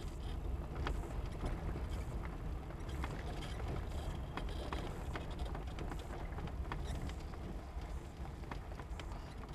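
Car rolling slowly over gravel: a steady low engine rumble with scattered sharp clicks and ticks.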